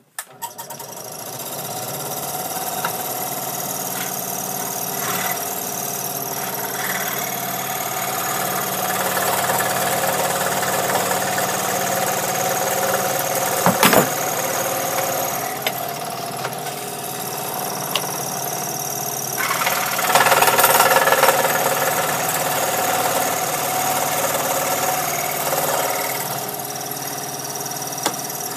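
Scroll saw starting up and then running steadily as a piece of wood is fed through the blade. The cutting grows louder for a couple of seconds about twenty seconds in, and there is one sharp click about halfway through.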